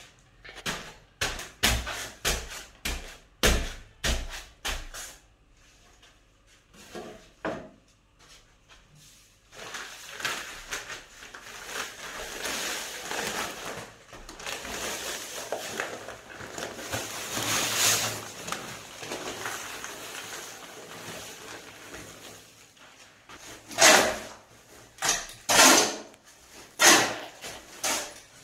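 A run of knocks and thumps, then from about ten seconds in a long, steady rushing noise as dry cement powder pours out of its paper bag onto a pile of sand. Near the end come several loud, sharp scrapes of a shovel on the concrete slab as the dry sand and cement start to be turned together.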